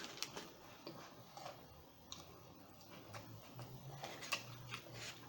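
Quiet eating sounds: scattered small clicks and taps of food and mouth, spaced irregularly.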